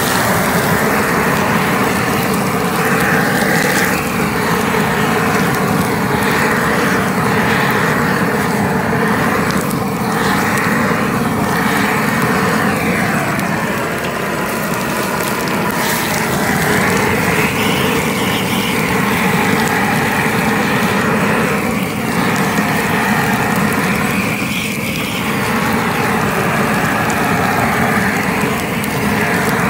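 Propane weed torch burning at full blast into a cast iron skillet: a steady, loud roar.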